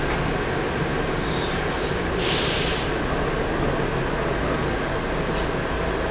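Volvo B10M bus's underfloor inline-six diesel engine running, heard inside the cabin, with a faint steady high whine from the turbocharger. A short hiss of air cuts in about two seconds in.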